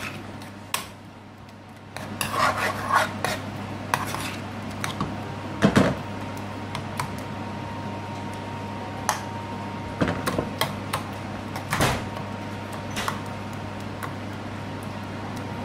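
Metal spoon scraping and knocking against a metal frying pan while stirring a thick spinach curry, in scattered strokes, the loudest a little over a third of the way in. A steady low hum runs underneath.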